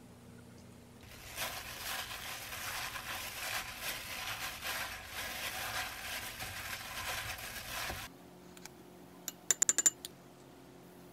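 A hand in a disposable plastic glove mixing sliced pork in a glass bowl: the glove crinkles and rustles and the meat squishes for about seven seconds. Then, after a short pause, a quick run of light clinks as a metal measuring spoon taps against a small glass bowl.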